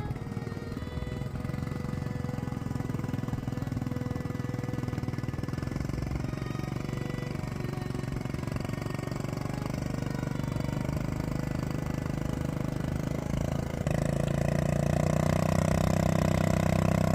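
ATV engine running under load as it drags a plow through hard ground. It gets louder and works harder about three-quarters of the way through.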